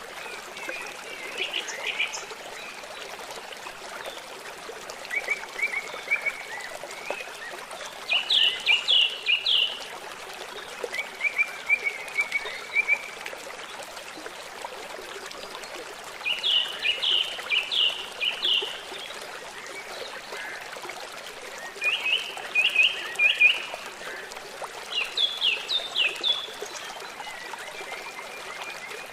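Songbirds singing in short phrases of rapid repeated notes, each phrase about one to three seconds long and coming every few seconds, over a steady trickle of running water.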